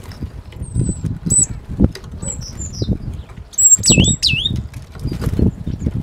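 Great tits fluttering and landing at a wooden bird feeder: repeated close wingbeats and light taps on the wood. A few thin, high bird calls sound over them, the loudest pair about four seconds in, each dropping sharply in pitch.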